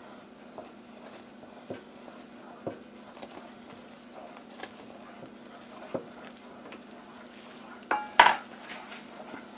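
Wooden spoon stirring thick cornmeal mush in a large stainless steel stockpot. The spoon knocks against the pot now and then, with a louder, ringing clank about eight seconds in, over a steady low hum.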